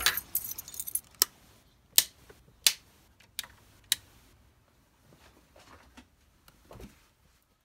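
Light jingling, then about five separate sharp clicks of small hard objects, and a softer knock near the end.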